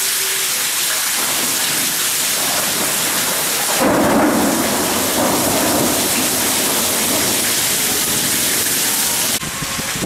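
Heavy thunderstorm rain pouring down and splashing on paving. About four seconds in, a low rumble of thunder rises and rolls on for several seconds.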